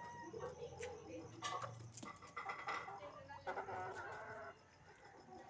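Chickens clucking and calling in a run of varied calls that quiets down about four and a half seconds in.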